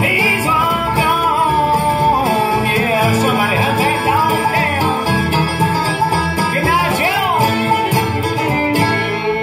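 Live bluegrass band playing: a bowed fiddle carries the melody over banjo, mandolin, acoustic guitar and upright bass.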